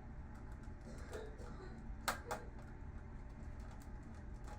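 A few faint clicks and taps from tools and small parts being handled during monitor disassembly, with two sharper clicks about two seconds in, over a low steady hum.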